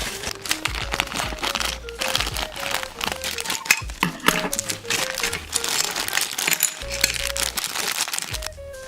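Plastic packaging crinkling and rustling as a small miniature is unwrapped, over background music with a simple, stepping melody and a steady low beat.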